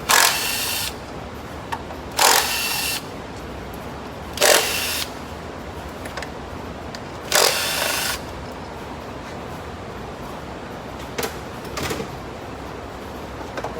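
Cordless power tool spinning out the 10 mm bolts that hold the ignition coils, in four short runs of under a second each, followed by two light clicks near the end.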